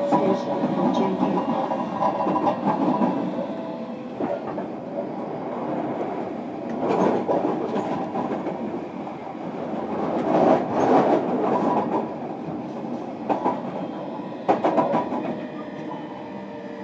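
JR Kyushu 305 series electric train with Toshiba VVVF permanent-magnet motors, heard from inside a motor car while running: a steady rumble with faint steady tones, and several bursts of wheels clicking over rail joints.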